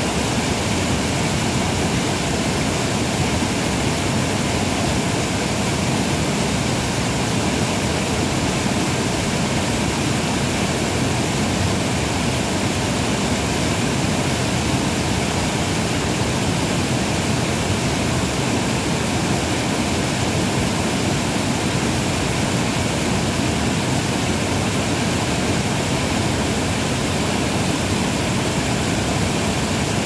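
Water pouring over a low weir and churning white over rocks below: a steady, even rush that does not change.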